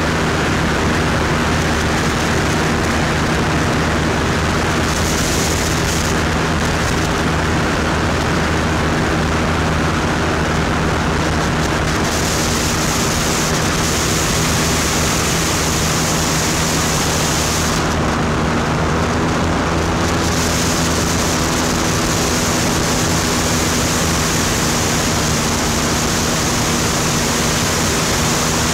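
SeaRey amphibian's engine and propeller running at a steady drone in low flight, under a loud, even rush of air noise.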